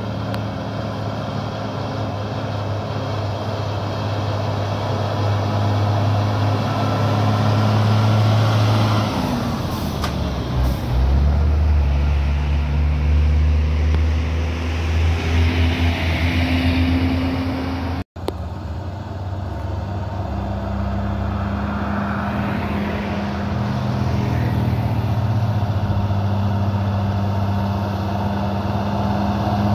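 Heavy truck's diesel engine running hard under load. About nine seconds in, its note drops sharply, then climbs slowly again. A little past halfway the sound cuts out for an instant, then the engine carries on steadily.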